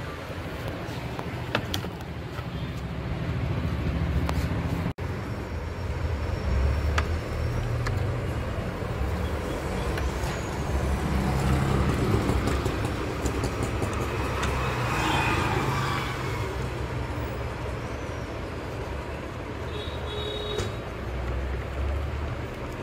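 Steady rumble of road traffic with a few faint clicks, and a short high tone about twenty seconds in.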